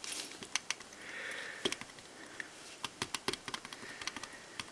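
Faint, scattered small clicks and taps with soft rubbing as fingers dab a pellet of Rodico around the dial and bezel of a pocket watch.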